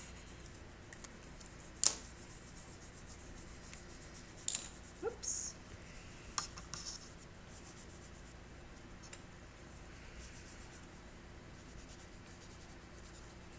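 Faint scratching of a colored pencil on paper as stripes are drawn. A sharp tap about two seconds in, and a few light clicks and knocks between about four and seven seconds.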